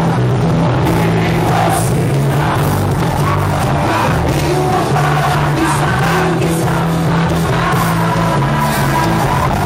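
Live rock band playing loudly, with vocals and a cheering crowd, heard from inside the audience at the concert.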